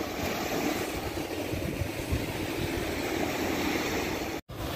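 Small waves washing onto a sandy beach, with wind buffeting the microphone in low gusts. The sound cuts out for a split second near the end.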